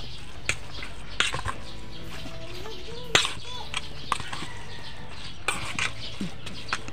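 Fish patty mixture being mixed by hand in a stainless steel bowl: irregular clinks and knocks against the bowl, the loudest about three seconds in, over a steady low hum.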